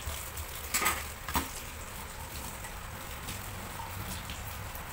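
Kitchen tap running onto dishes in the sink while a plastic food container is rinsed under it, with a couple of light knocks of dishware about a second in.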